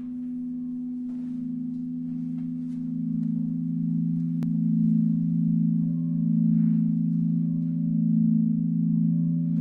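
A sustained low musical drone of two steady tones held together, slowly wavering and gradually swelling louder, with a single sharp click about four and a half seconds in.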